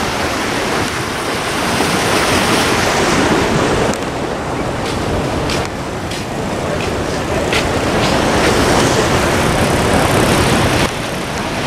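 Turbulent Indus River floodwater rushing past a barrage: a loud, steady noise of churning water.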